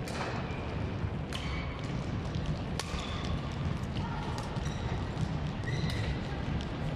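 Badminton rackets hitting a shuttlecock in a rally: three sharp cracks about a second and a half apart in the first three seconds. Short squeaks from court shoes on the floor follow, over the steady low hum of a busy sports hall.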